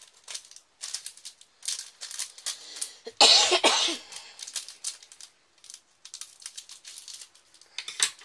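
Small plastic bag of rhinestones crinkling and rustling in the hands, in short scratchy bursts. A single loud cough about three seconds in.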